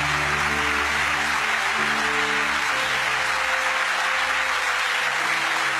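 Studio audience applauding steadily, with held chords of background music underneath.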